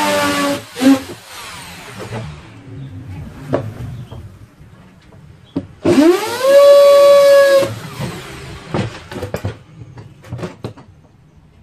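Handheld electric drill boring into the metal base plate of a circular saw: it runs briefly and stops within the first second, then about six seconds in spins up with a rising whine, runs steadily for about two seconds and winds down. Scattered knocks and clicks in between as the saw is handled on the workbench.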